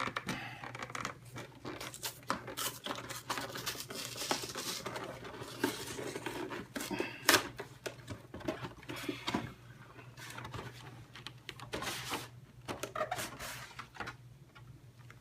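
A cardboard collection box and its plastic packaging being handled and opened by hand: crinkling, tearing and many small clicks and knocks, with one sharp snap about seven seconds in.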